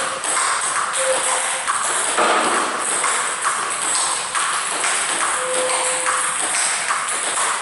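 Table tennis ball clicking off paddles and bouncing on the table in quick succession during a practice rally.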